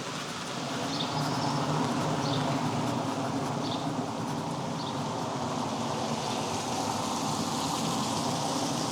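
Steady rain falling, with a low rumble underneath that swells slightly about a second in, and a few faint short high chirps.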